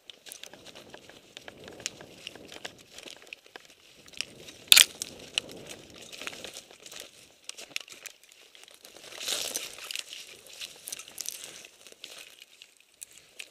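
Undergrowth, brambles and dry leaves rustling and crackling as someone pushes through thick brush on foot, with one sharp crack about five seconds in.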